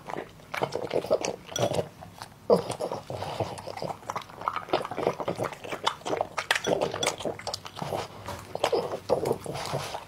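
French bulldog licking and smacking its lips and eating noodles, an irregular run of short wet smacks and clicks.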